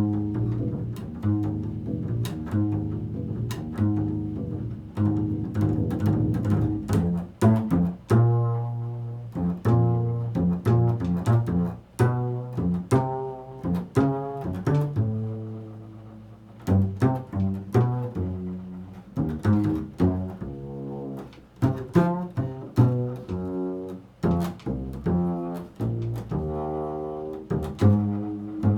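Jazz double bass playing: low plucked notes in quick runs, with some longer held, bowed-sounding notes.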